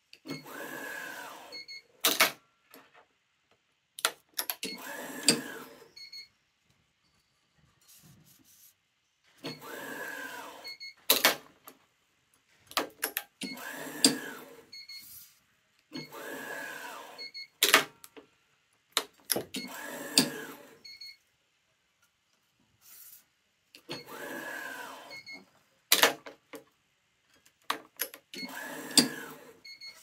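Yonex ES5 Protech electronic stringing machine's tension head pulling each cross string to tension: a motor runs for about a second and a half, about eight times, several runs followed by short beeps. Sharp clicks come in between from the string clamps and the tensioner gripper.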